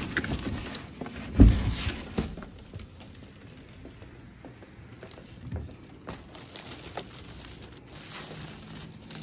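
An office door with a lever handle being opened and pushed shut, with a loud thud about a second and a half in, followed by footsteps on the floor and scattered light clicks of handling.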